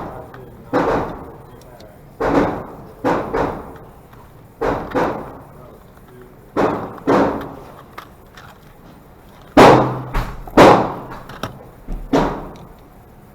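A Glock 44 .22 LR pistol being fired, about a dozen sharp shots at uneven intervals, several in quick pairs, each with a short echoing tail.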